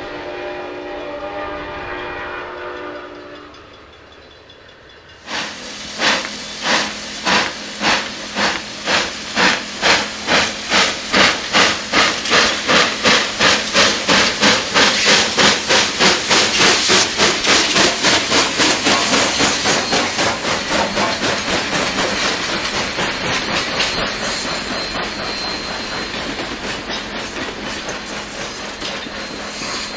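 A distant train horn chord fades out. Then Southern Pacific 4449, a GS-4 4-8-4 Daylight steam locomotive, passes working steam: loud exhaust chuffs that quicken from under two a second to about two and a half a second. They blur into hissing steam and the steady clickety-clack of its passenger cars rolling by.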